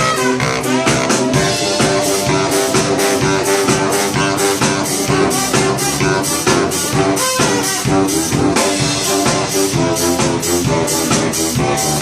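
A street brass band playing an upbeat tune live, with saxophone and brass over a drum kit keeping a steady, driving beat.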